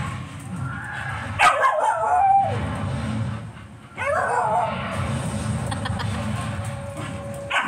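A dog vocalizing in drawn-out pitched yips whose pitch slides up and down: a longer one about a second and a half in and a shorter one about four seconds in.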